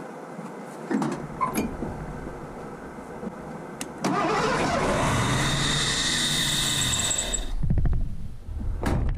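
Ford 302 V8 being started: a few clicks, then from about four seconds in a sudden loud, sustained sound of the engine cranking, with a high whine on top. Near the end it breaks into a rapid run of firing pulses as the engine catches.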